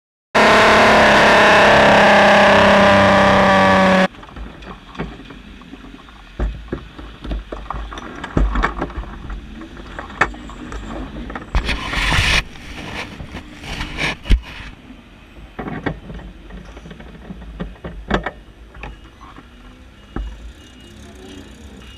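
Formula Ford race car's engine running flat out at steady high revs, heard onboard for about four seconds before cutting off abruptly. Then quieter knocks, clicks and low thumps from the stationary car as the driver climbs out of the cockpit.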